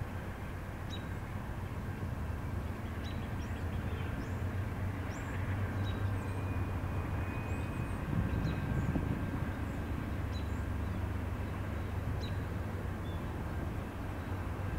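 Outdoor ambience: a steady, distant low mechanical rumble that swells about eight seconds in. Short high chirps of small birds sound roughly once a second over it.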